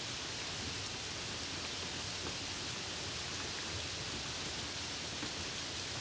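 Steady rain, an even hiss without break, with a few faint ticks in it.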